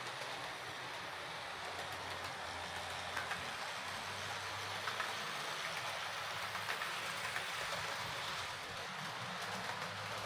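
Jouef TGV model train running along the track: a steady whirr of the small motor and wheels on the rails, with a few faint clicks.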